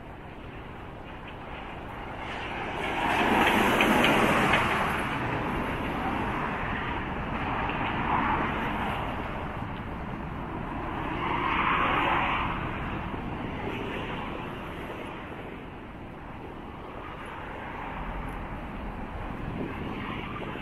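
Road traffic: several cars passing one after another on the adjacent road, each swelling and fading, the loudest about four seconds in.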